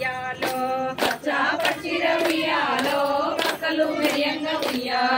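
A group of women singing a Telugu Bathukamma folk song together, keeping time with steady hand claps, about one and a half a second.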